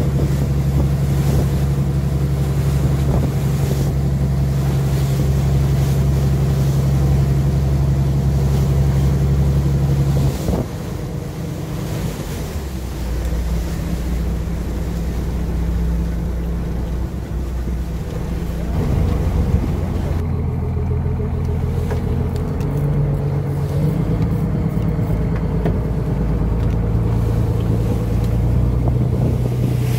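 Fishing boat's engine running with a steady low hum, with wind noise on the microphone. The engine note drops and changes about ten seconds in, and shifts a few more times after that.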